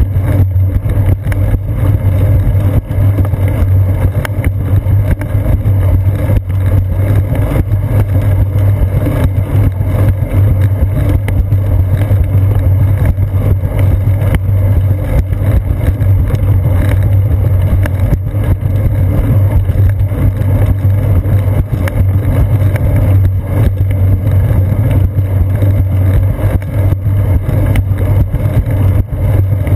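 Steady low rumble of wind and road vibration picked up through a seat-post-mounted GoPro Hero 2 as the bicycle rolls along a concrete path, with many small knocks running through it.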